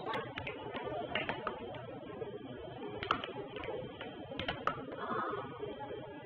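Air hockey puck and plastic mallets clacking: irregular sharp hits as the puck is struck and knocks against the table's rails, over steady background noise.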